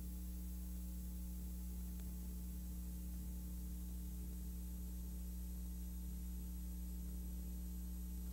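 Steady low electrical hum with constant hiss and no other sound: the noise floor of a silent film's transfer.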